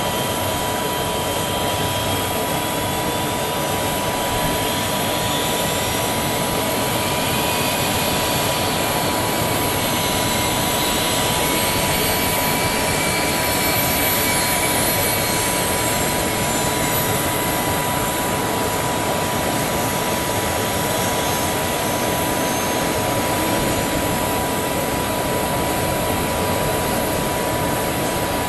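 Steady jet turbine noise: a constant whine over a broad rush. Partway through, a fainter higher whine slowly rises and falls.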